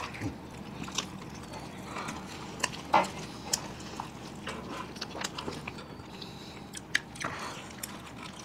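People biting and chewing pizza, open-mouthed, with short mouth clicks scattered through the chewing.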